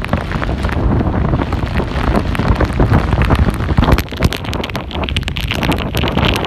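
Hurricane wind buffeting the microphone in rough, gusty blasts, over storm-surge waves washing and splashing across a flooded street.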